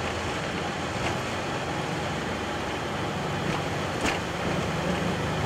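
Flight deck of a Boeing 737-800 accelerating on its takeoff roll at takeoff thrust: a steady rush of engine and airflow noise over a low rumble, which grows a little stronger about four seconds in. A few short thumps come through, the most distinct one about four seconds in.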